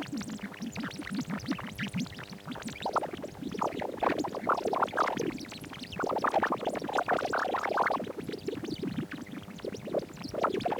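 Output of a photodiode laser microphone whose beam bounces off a mirror being tapped: a rapid, warbling, scratchy electronic chatter over a steady electrical hum.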